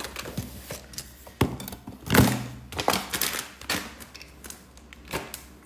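Scattered knocks and clicks at an irregular pace, the loudest about two seconds in.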